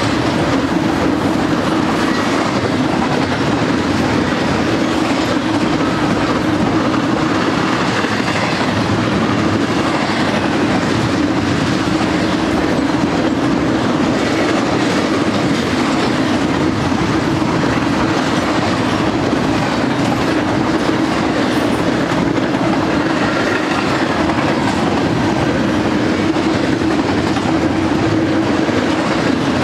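Double-stack intermodal container cars rolling past: a steady, loud rumble of steel wheels on rail with a constant droning hum underneath.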